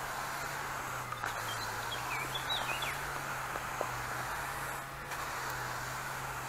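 Pressure sprayer's wand nozzle hissing steadily as it sprays weedkiller, over a low steady hum. A bird chirps several times about a second and a half to three seconds in.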